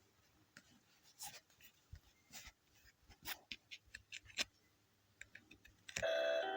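A string of short scratchy strokes and light clicks, like writing or sketching, irregularly spaced. About six seconds in, music with clear bright notes starts suddenly and is louder than the strokes.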